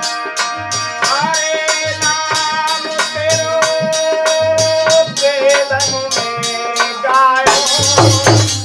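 Hindi folk bhajan: a male singer's voice over a harmonium, with a dholak beating a steady rhythm and a bright shaken percussion keeping time. The singer holds one long note in the middle before the line moves on.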